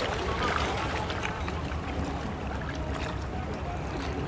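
Outboard boat engines running at low speed, a steady low rumble, with faint voices in the background.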